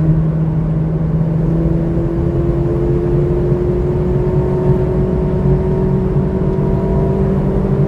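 McLaren Artura's twin-turbo V6 hybrid engine running under full throttle as the car accelerates, its pitch rising slowly and steadily in one gear.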